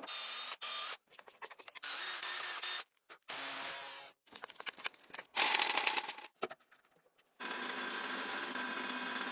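Several short spells of a small power tool running, each starting and stopping abruptly, with clicks and taps between them; the longest spell comes near the end.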